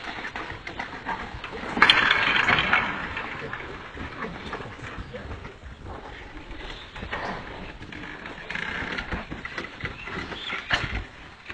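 Voices of an outdoor crowd shouting and calling. There is a loud burst of shouting about two seconds in and a sharp peak near the end.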